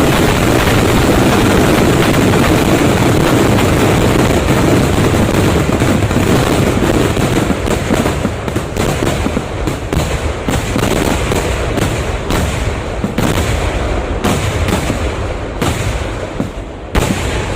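Fireworks barrage: a dense, unbroken crackle of explosions that, about halfway through, breaks up into rapid separate bangs, each followed by a short ring, thinning out toward the end.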